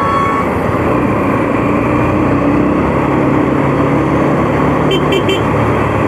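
Steady wind and road rush over a motorcycle helmet's handsfree microphone while riding in traffic at about 50 km/h, with a low motorcycle engine hum underneath. Three short, high beeps about five seconds in.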